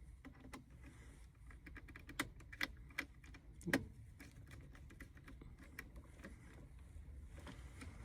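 Scattered light clicks and taps of hand tools and thermostat wires being handled at an air handler's low-voltage control board, with a few sharper knocks between about two and four seconds in.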